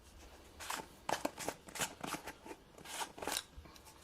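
Ingredient containers and packaging being handled while a spice rub is started: a quick run of short rustles and clicks.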